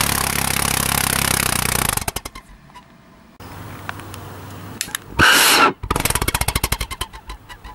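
Homemade Reynst pot pulse jet, built from a fire-extinguisher shell with a steel tailpipe, running loudly and steadily for about two seconds, then stuttering and dying out. About five seconds in it lights again with a loud burst and fires in a rapid string of pulses for a second or two before stopping. These short runs are the engine's fault: it won't keep going for more than two or three seconds.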